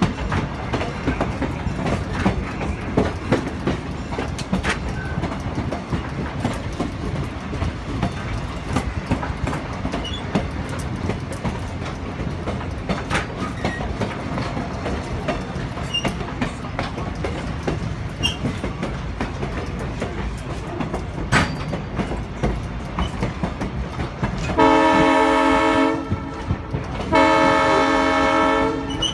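Railroad cars rolling along the track, a steady clatter with scattered clicks from the wheels. Near the end the Southern Pacific No. 1423 horn sounds two long blasts, a chord of several notes.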